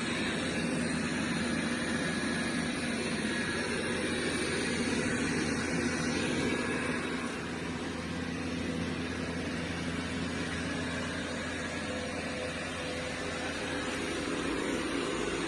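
Dreame robot vacuum running: a steady whir of its suction fan and brushes with a low hum, easing off slightly about seven seconds in.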